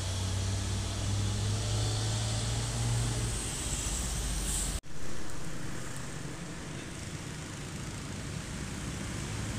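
Heavy truck's diesel engine running low and steady as it pulls through a turn, then easing off. There is a brief high hiss, and a sudden cut about five seconds in, after which there is quieter road traffic noise.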